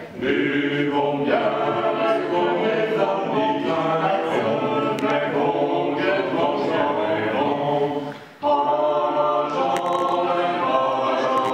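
A small group of voices singing a French song together, unaccompanied. The singing breaks off briefly about eight seconds in, then resumes.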